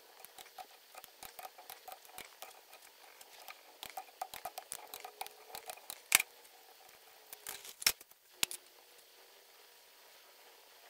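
Quick light clicks of a hand wrench working the bolts of a TH400 transmission front pump, with a few sharper metal clinks about six and eight seconds in.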